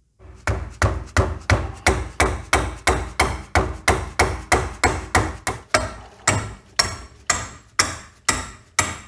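Hammer striking metal over and over, about three blows a second, spacing out slightly toward the end, each blow with a short ring. It is knocking loose a rusted, seized hydraulic pipe fitting on a self-leveling suspension accumulator.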